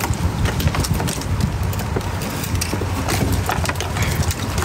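Low rumble of wind on the microphone with scattered light knocks and clicks from handling gear aboard a kayak.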